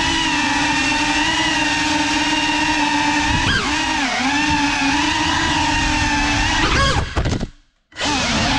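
GEPRC CineLog35 FPV drone's brushless motors and propellers whining steadily, the pitch wavering with the throttle, with a quick rise and dip about three and a half seconds in. Near the end the whine rises, then cuts out for about half a second and starts again.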